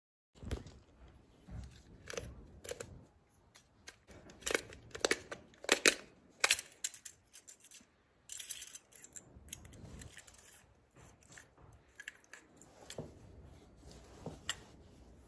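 Hands working with tools and small parts: irregular sharp clicks and clatters with some rustling, loudest around the middle.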